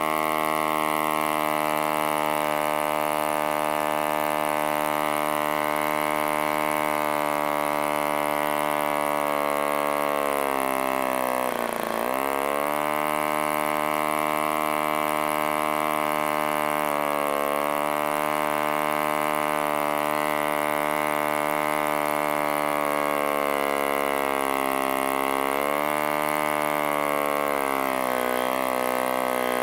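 1947 HP Series I 3.5 cc spark-ignition model aero engine running at full song on a wooden propeller, a steady high buzz. About twelve seconds in its pitch sags briefly and then climbs to a faster speed as its settings are adjusted, easing lower again near the end.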